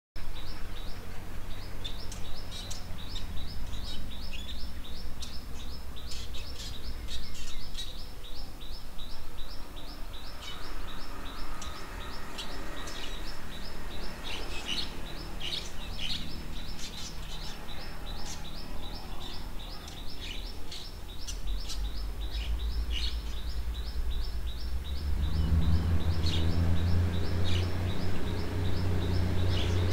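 Diesel railcar approaching, its engine rumble growing steadily louder and taking over in the last few seconds. Throughout, a bird chirps over and over in short, quick calls.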